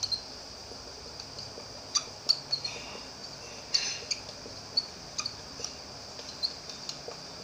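Felt-tip whiteboard marker squeaking in short, irregular strokes on the board as words are written, over steady low room noise.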